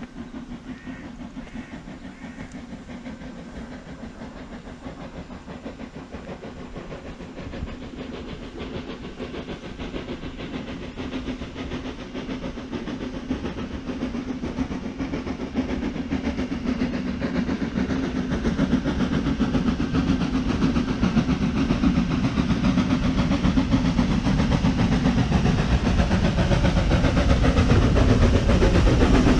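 Heritage train running along the track: a steady rumble with wheel clatter that grows gradually louder.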